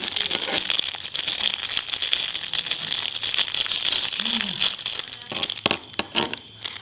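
Plastic parcel packaging crinkling and rustling as it is handled, dense for about four and a half seconds, then thinning to scattered crackles.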